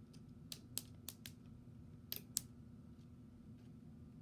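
LEGO plastic pieces clicking as parts are fitted onto the Clayface figure: about six sharp, faint clicks in the first two and a half seconds, over a low steady hum.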